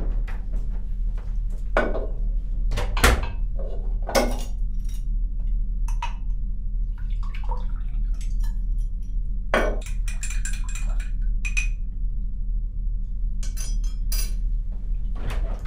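Glass bottle and small drinking glass clinking and knocking together as they are handled, with a dozen or so separate sharp clinks, a few ringing briefly, over a steady low hum.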